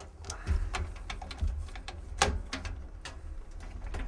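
Irregular light clicks and knocks of a hard drive and its cables being handled, with one sharper knock a little past two seconds in.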